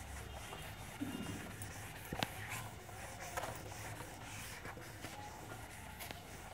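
Whiteboard eraser rubbing across a whiteboard in faint strokes as the board is wiped clean, with one sharp tap about two seconds in.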